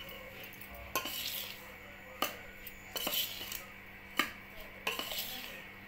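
A steel spoon stirring dry avakaya spice powder (chilli, mustard, salt) in a metal pot, scraping through the powder with several sharp clinks against the pot's side.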